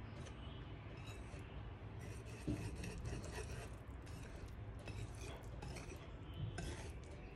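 Wire whisk stirring wet batter into flour in a bowl: a run of soft scraping and rubbing strokes, with one knock about two and a half seconds in.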